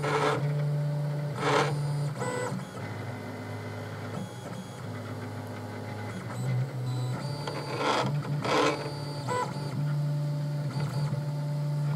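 PrintRite DIY 3D printer printing, its stepper motors giving a steady whine that steps up and down in pitch as the print head's moves change. It gets briefly louder a few times: near the start, about a second and a half in, and twice around eight seconds in.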